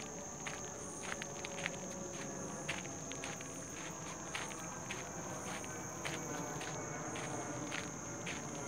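Footsteps walking on a paved forest path, about two steps a second, over a steady high-pitched drone of insects.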